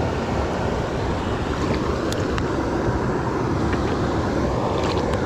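Steady rush of water pouring over a spillway dam, with wind buffeting the microphone and a few light ticks near the end.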